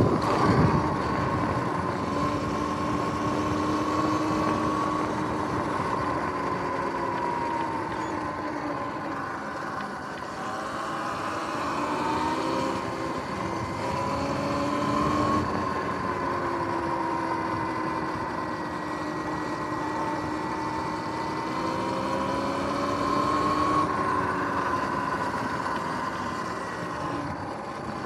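Electric dirt bike's motor whining as it rides along, its pitch rising and falling slowly with speed, over a steady rush of wind and tyre noise.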